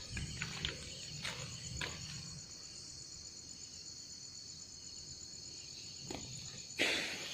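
Insects chirring in a steady, high-pitched chorus, with a few faint clicks in the first two seconds and a short burst of noise near the end.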